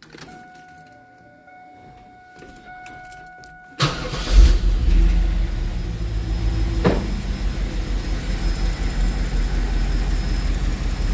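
A steady electronic warning tone with a few brief breaks, then about four seconds in the LT1 V8 cranks, catches and settles into a steady idle through its stock exhaust. A single click sounds a few seconds after it starts. The owner calls the running engine pretty healthy.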